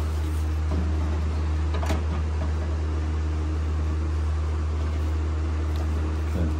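Steady low machine hum, like a fan running, with a few faint knocks: near the start, about two seconds in, and near the end.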